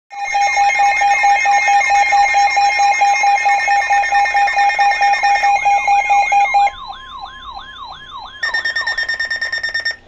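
Several NOAA weather radios sounding their alert alarms at once for a flash flood warning: a loud rapid beeping layered with a repeating siren-like sweep. About two-thirds through the loudest beeping cuts off, leaving the sweeping warble, and a higher rapid beeping starts near the end.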